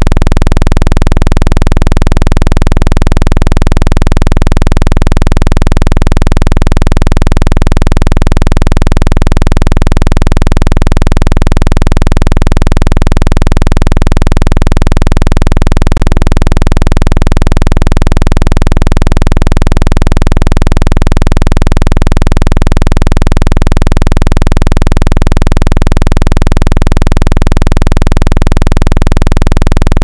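Loud, steady deep bass buzz: a water-eject tone meant to be played through a phone's speaker so that its vibration shakes water out of the speaker and charging port.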